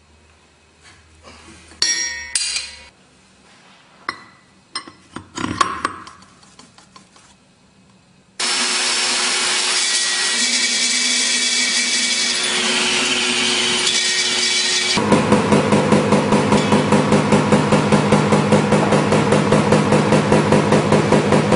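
Handling knocks and clinks, then an Eibenstock core drill for large holes in concrete starts suddenly and runs loud and steady. About halfway through, the sound turns heavier and pulses about four times a second as the bit cuts into the concrete.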